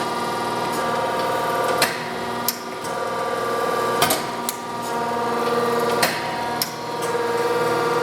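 Diacro 14-48-2 hydra-mechanical press brake running, its motor and hydraulic pump humming steadily while the ram cycles at slow speed. Sharp clicks come about every two seconds with the strokes.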